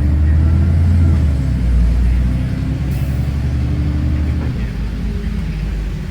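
Road traffic passing close by: a large vehicle's engine drones loudly, its pitch sliding slowly, then eases off after about four seconds.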